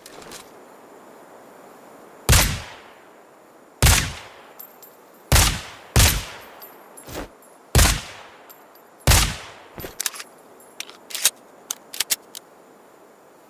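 Desert Eagle pistol with a suppressor firing six shots at intervals of about one to one and a half seconds, each followed by a short fading tail. Near the end come a few quick, smaller sharp clicks.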